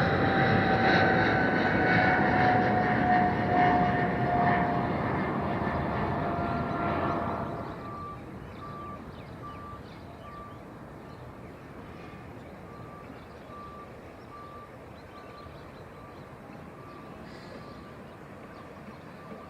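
Jet airliner's engines at takeoff power, a loud rushing noise with a whine that slowly falls in pitch, fading away sharply about seven seconds in. After that a steady faint hiss remains, with a short high beep repeating about every two-thirds of a second.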